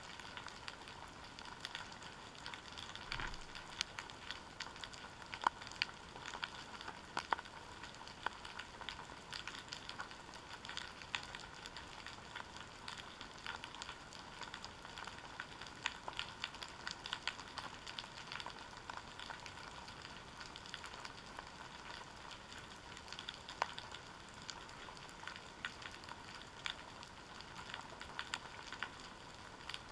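Underwater seabed ambience picked up through a GoPro Hero 3's waterproof housing: a steady hiss with a constant, irregular crackle of sharp clicks.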